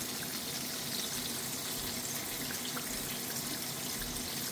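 Flour-coated fish deep-frying in hot oil: a steady sizzle with fine crackling.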